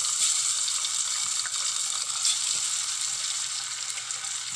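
Chicken pieces deep-frying in hot coconut oil in a pan: a steady sizzle with small crackles through it.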